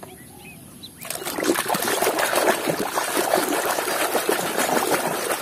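Water splashing and sloshing as a plastic toy is swished and scrubbed by hand in a tub of foamy water. It starts abruptly about a second in.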